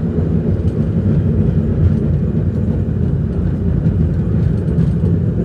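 San Francisco cable car rolling along its street rails, heard from on board: a loud, steady low rumble of wheels and running gear with faint scattered clicks.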